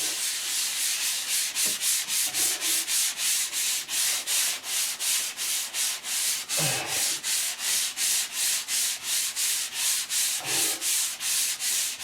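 Foam sanding block rubbed back and forth by hand over dried plaster, in a steady rasping rhythm of about three strokes a second.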